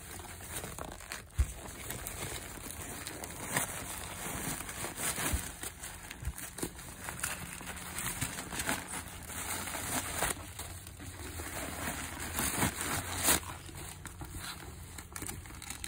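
Tissue paper and plastic packaging rustling and crinkling as it is unwrapped from a new handbag, with irregular crackles and a few soft knocks of handling.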